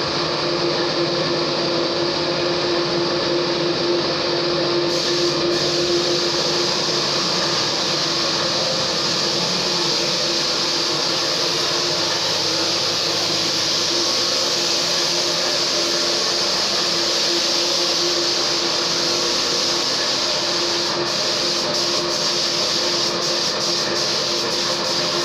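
A machine running steadily, with a strong hiss over a constant low hum.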